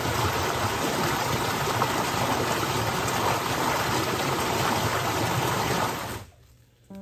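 Stream water rushing over a small rocky cascade: a steady, full rush of water that fades out quickly about six seconds in.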